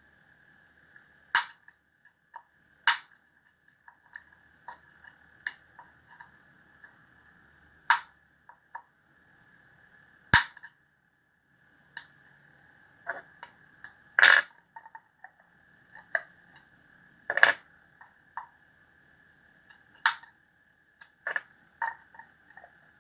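Irregular sharp snaps and clicks, about a dozen loud ones a second or more apart, from a plastic part being cut and trimmed by hand to reshape it. A faint steady high whine sits underneath.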